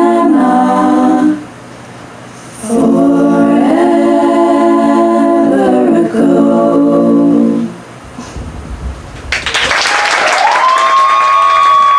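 An a cappella vocal group singing long, held closing chords without words, in two phrases with a short break between them. The second phrase ends about eight seconds in. Near the end a different, noisy sound takes over, with a high tone that rises and then holds.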